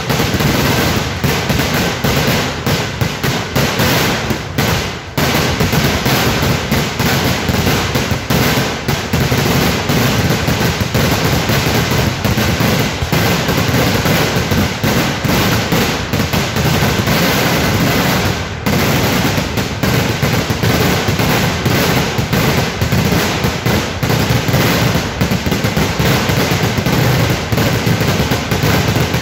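Kerala-style vedikkettu firecracker barrage: a dense, unbroken run of rapid bangs and crackling, easing only for a moment about five and eighteen seconds in.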